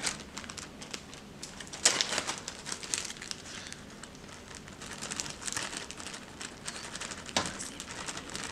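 Clear plastic zip-lock bag crinkling as it is handled, with a few sharper crackles.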